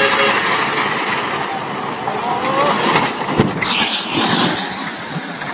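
Heavy tanker truck running as it moves along, then a crash a little over three seconds in as it tips over onto its side, followed by a loud rushing hiss for about half a second.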